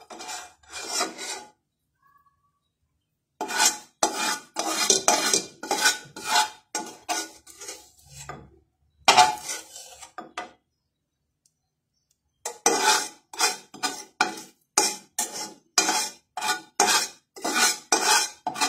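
Spatula scraping and scooping across the bottom of a large aluminium pan in quick repeated strokes, several a second, stopping twice for about two seconds.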